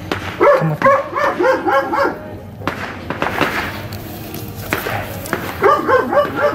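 A dog barking in quick runs of short barks, one run about half a second in and another near the end.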